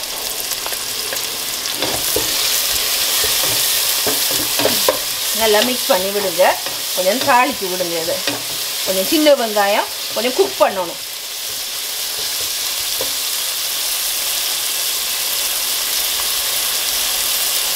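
Shallots, green chillies and curry leaves sizzling in hot oil in a pot, stirred with a wooden spatula as ginger-garlic paste is mixed in. Several seconds of wavering pitched sounds come in the middle over the steady sizzle.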